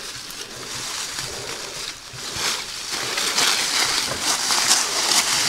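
Dry leaf litter rustling and crunching under footsteps while a long dead branch is dragged through it down a slope, with a few small snaps of twigs; louder in the second half.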